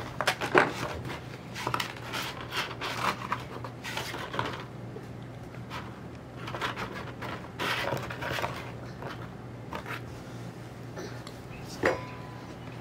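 Paper and cardboard rustling and scraping in irregular bursts as shadow-puppet cutouts and a paper backdrop are handled in a cardboard-box theatre, over a low steady hum.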